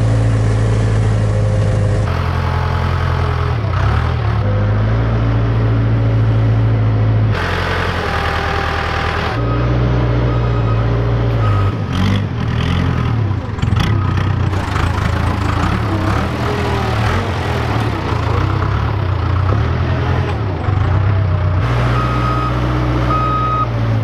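Case backhoe's diesel engine running steadily while plowing snow, the sound changing abruptly at each cut between shots. A reversing alarm beeps a few times near the end.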